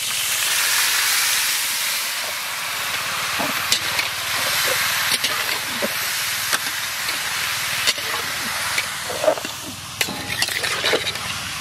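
Chopped tomatoes tipped into hot mustard oil in a large iron wok, sizzling loudly as they hit the oil and frying on, with a few sharp knocks of the metal spatula against the pan as they are stirred.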